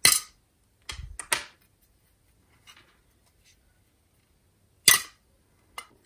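Close handling noises as fingers set, press and lift small polymer clay pieces on a hard base with a wire armature: short soft knocks and rubs, one at the start, three close together about a second in, and one more about five seconds in.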